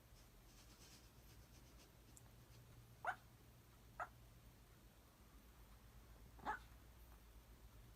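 Papillon puppy in its sleep making short, sharp little noises, four at uneven intervals: about three and four seconds in, then around six and a half seconds and again at the very end. The owner is unsure whether they are sleep-talking, hiccups or snoring.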